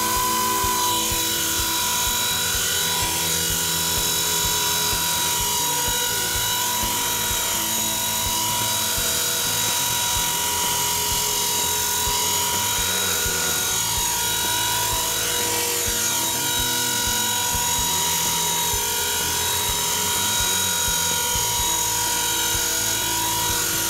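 Align T-Rex 450 electric RC helicopter hovering, a steady high whine from its brushless motor and spinning rotors, the pitch sweeping up and down again and again as it moves about.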